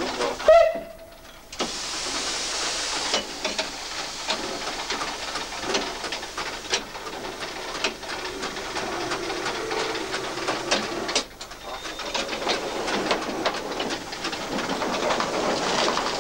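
In-cab sound of the Škoda-built 2-8-0 steam locomotive 434.1100 under way: a steady hiss of steam with clattering and sharp metallic clicks and knocks. There is a short burst of sharper, higher hissing about two seconds in.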